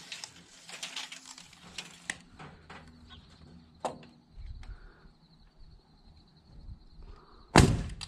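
Light clicks and knocks of hands and tools working on wooden roof trusses, then one loud, sharp thump near the end.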